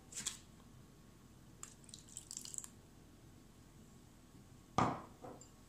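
Flaxseed gel being strained: scattered drips and small splashes of liquid, with light clicks of kitchenware and a sharper knock near the end.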